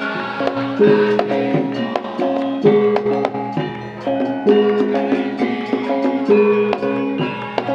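Live instrumental music: sustained melodic notes over steady struck percussion in a repeating pattern, with no singing.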